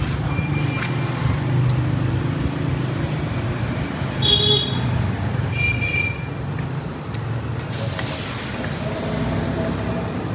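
Steady low rumble of vehicle and workshop background noise, with two short high-pitched squeals a little before the middle and a burst of hissing about eight seconds in.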